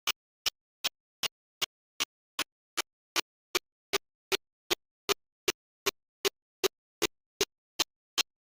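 Sharp clicks in a perfectly even beat, about two and a half a second, with dead silence between them: a steady ticking like a metronome or clock-tick track.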